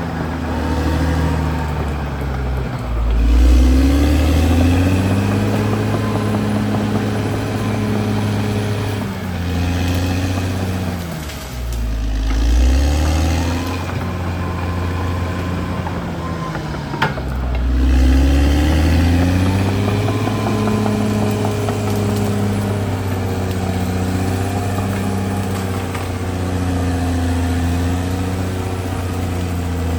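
Caterpillar D6R XL bulldozer's diesel engine running hard, its pitch sagging and recovering several times as the load comes on and off. One sharp click about halfway through.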